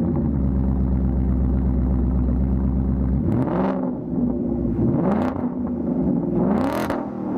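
2024 Mustang GT's 5.0 L V8 idling through a Pypes H-Bomb cat-back exhaust with Pipe Bomb mufflers, then revved in three short throttle blips, about three, five and six and a half seconds in, each rising and falling back to idle.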